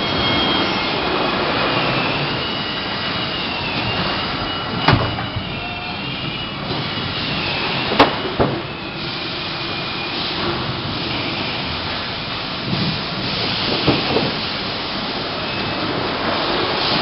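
Steady machinery din of a refrigerator assembly line, with its roller and chain conveyors running. Faint wavering whines sit over it, and there are sharp knocks about five seconds in and a louder one about eight seconds in.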